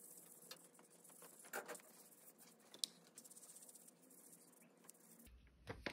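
Near silence with faint scratchy strokes of a wet paintbrush rubbing in small circles over paper, a slightly louder rub about a second and a half in and a small click near three seconds.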